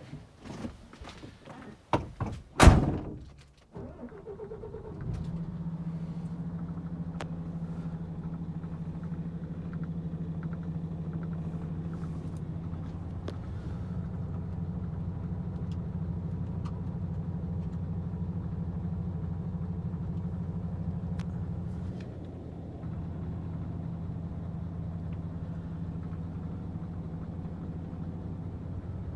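A few knocks and one loud thunk in the first seconds. Then the MAN TGX 26.480's 12.4-litre straight-six diesel cranks briefly and starts at about five seconds, and idles steadily as heard from inside the cab.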